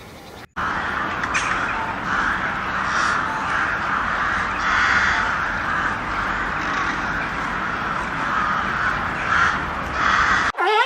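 A large flock of birds calling all at once, a dense overlapping din of harsh calls that starts about half a second in and stops abruptly just before the end.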